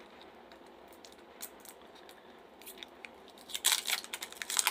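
Small plastic zip bag being pulled open by hand, crackling and crinkling, starting about three and a half seconds in after a few faint ticks.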